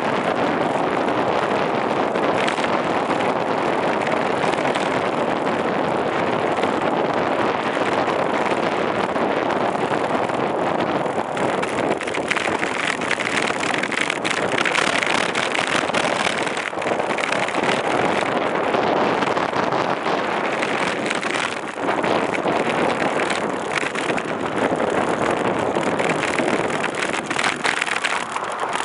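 Steady rush of wind over the microphone and tyre-on-road noise from a bicycle-mounted camera riding along a city street, with a few short knocks and rattles from bumps.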